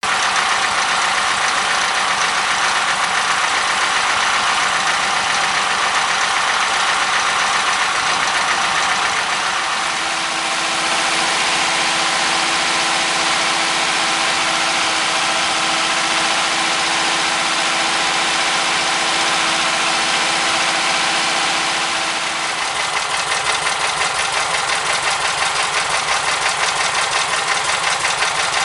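MeMZ-969B air-cooled V4 engine running in after a major overhaul, exhausting through a stock muffler. Its speed steps down about 10 seconds in and again about 22 seconds in, settling to an uneven, pulsing idle near the end.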